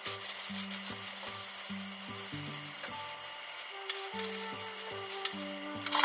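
Plastic bag rustling and crinkling as hardened, caked sugar inside it is squeezed and rubbed between the hands to break up the lumps; the rustling stops about five and a half seconds in.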